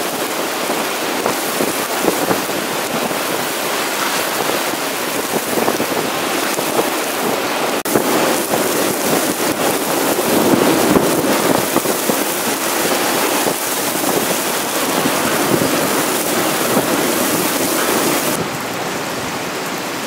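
Heavy rain pouring down in a severe thunderstorm's high winds, a dense, steady hiss that swells louder about halfway through.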